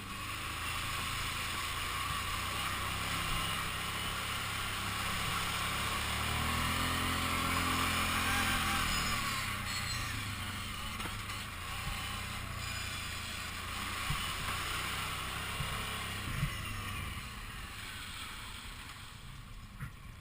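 Kawasaki Brute Force 750 ATV's V-twin engine running while riding, the revs climbing for a few seconds about six seconds in and then easing off again.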